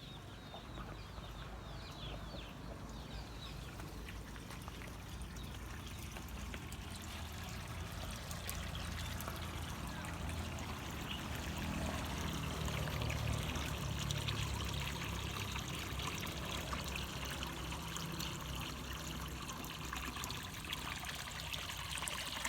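Water trickling and pouring steadily, with a low rumble, growing louder through the first half.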